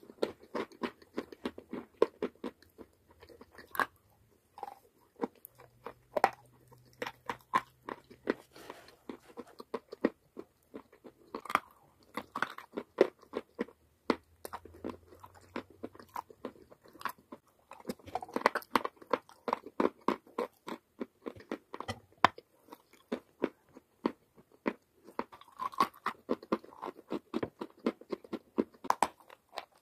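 Biting and chewing pieces of edible chalk and clay: runs of sharp, irregular crunches with short pauses between bites.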